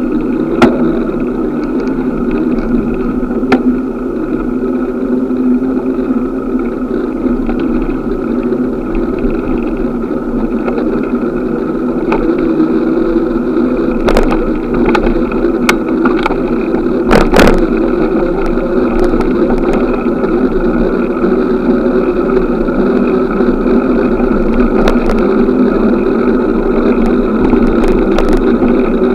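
Steady city traffic and road noise heard from a moving bicycle, with a few sharp clicks and rattles scattered through it.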